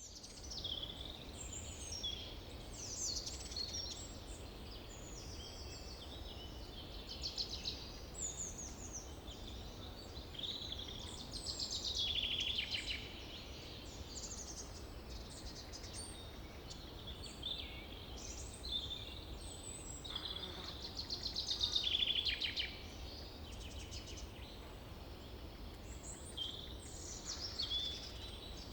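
Several birds singing and chirping, with many short trills and calls overlapping, over a low steady rumble.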